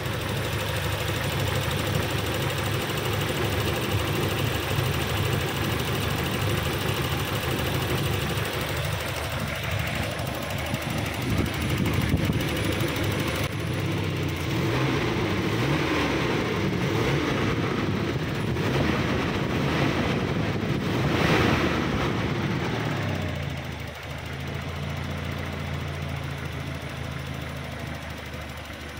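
Toyota Kijang LGX engine running with a strange, rough noise. The engine speed rises and falls through the middle, then drops back to a quieter, steady idle near the end.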